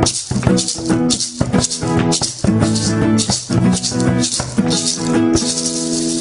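Intro theme music: sustained chords over a regular, fast percussive beat. The beat drops out about five seconds in, leaving one held chord.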